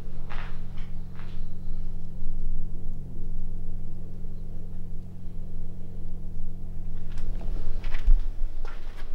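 Footsteps: a few steps near the start, a quiet stretch, then several more from about seven seconds in, over a steady low hum.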